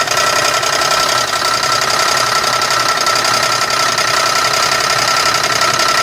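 GM 3800 Series II 3.8-litre V6 running steadily, heard from beneath the car near the oil pan, with a knock from the bottom end. The knock is a rod knock, the sign of an internal failure in the engine.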